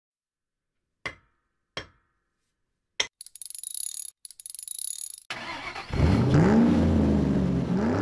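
Car engine start: a couple of clicks, a sharper click about three seconds in, then the starter cranking in rapid pulses for about two seconds before the engine catches and revs up and down.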